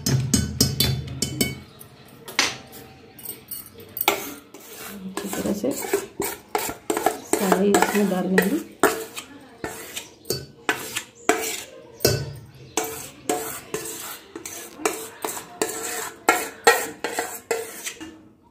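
Steel spoon scraping and knocking cake batter out of a metal mixing bowl into an aluminium pot: repeated irregular metal clinks and scrapes.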